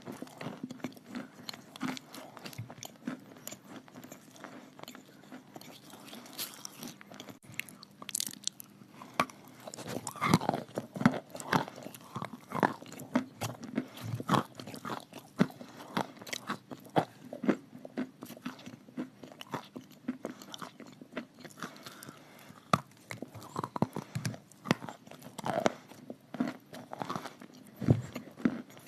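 Someone biting and chewing chalk with clay paste: a continuous run of irregular crisp crunches and bites.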